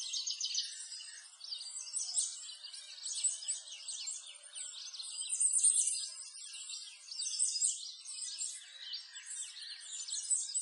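A dense chorus of small birds chirping and twittering: many quick, high calls overlapping without a break, swelling and fading in loudness.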